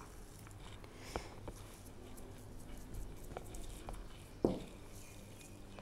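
A metal spoon placing mashed potato filling on a thin sheet of rolled dough: a few faint taps, with a sharper knock about four and a half seconds in.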